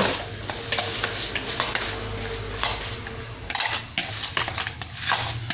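Chopsticks stirring marinated meat in a bowl, clicking and scraping against the bowl in an irregular clatter, loudest about three and a half seconds in.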